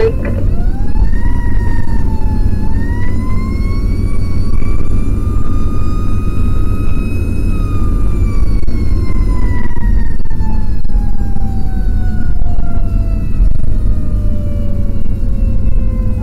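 Fire engine siren winding up to a high wail, then winding slowly down over the last half, over the steady rumble of the truck's engine and road noise.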